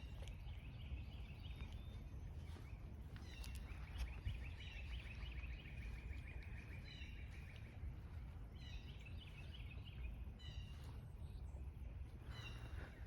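Songbirds singing: repeated short chirping phrases from several spots and one long even trill about a third of the way in, over a low steady rumble of outdoor noise.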